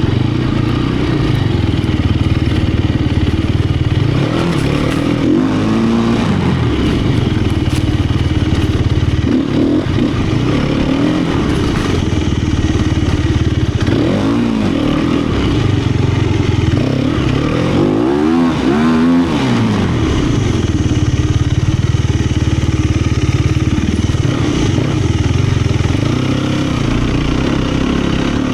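Sherco 250 SEF four-stroke single-cylinder enduro motorcycle engine running under way, its revs rising and falling with the throttle, most markedly twice in the second half.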